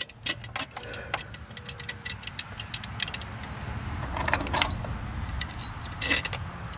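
Scattered light metallic clicks and clinks of loose bolts and small engine parts being handled, with a short scrape or rattle twice in the second half, over a low steady rumble.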